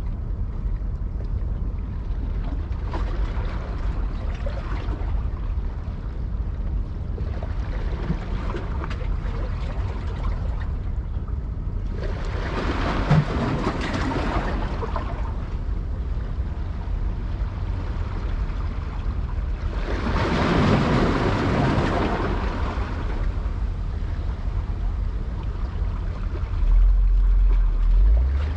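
Outdoor waterside ambience: a steady low wind rumble on the microphone, with two swells of rushing noise, about a third and two-thirds of the way through, and a stronger low gust near the end.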